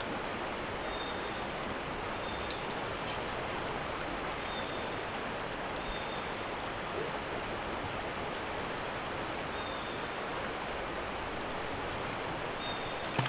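Steady rush of a river running high and fast over riffles, with a couple of faint clicks.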